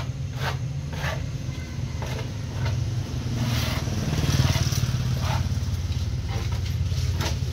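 An engine running at a steady idle, a low pulsing rumble, with short hissy noises about once a second and a louder noisy patch around the middle.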